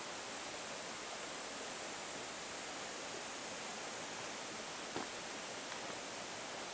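Steady rush of a mountain stream flowing over stones, with a single short knock about five seconds in.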